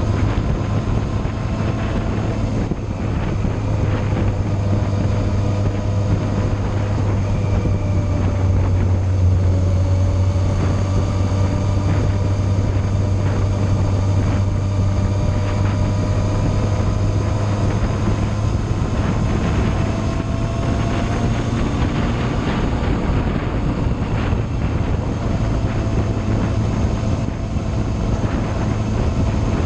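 Motorcycle engine running steadily while riding along a road, its note rising and falling gently with speed, with wind rushing over the microphone.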